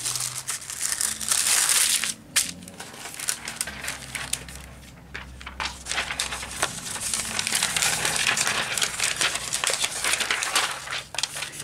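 Sheets of greaseproof paper being handled, unfolded and smoothed flat, crinkling and rustling with many small crackles. It is loudest in the first couple of seconds, softer through the middle, then picks up again.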